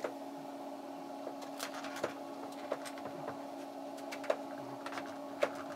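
Light, scattered clicks and taps of interlocking puzzle pieces being handled and tried, over a steady machine hum.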